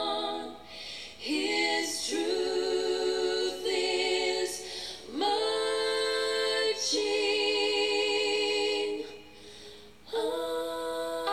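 A woman's voice singing a slow song in long held notes with vibrato, in phrases separated by short breaths.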